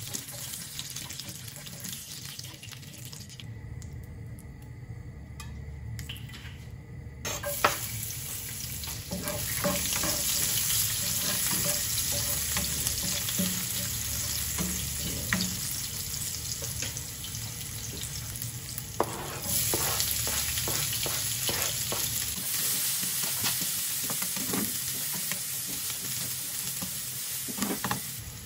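Oil sizzling in a nonstick frying pan, first around sausage slices, then with chopped garlic and onion being sautéed, while a spatula stirs and scrapes against the pan. The sizzle gets louder about a quarter of the way in and again past halfway, with a few sharp clicks.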